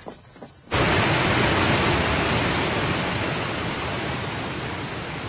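Rushing floodwater from a dam release, a loud steady wash of water that starts abruptly about a second in.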